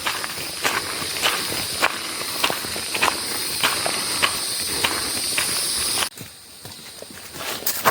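Footsteps of a hiker walking a forest trail at a steady pace, about one and a half steps a second, over a steady high-pitched buzz. The buzz cuts off suddenly about six seconds in, leaving quieter footsteps.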